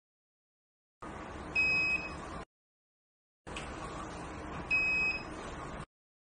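Wall-mounted infrared forehead thermometer giving two short electronic beeps about three seconds apart, one for each temperature reading, over faint room noise that cuts in and out abruptly.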